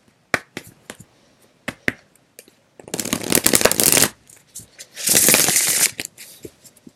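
A tarot deck shuffled by hand: scattered light card taps and clicks, then two longer bursts of rapid riffling, about three seconds in and again about five seconds in, each lasting about a second.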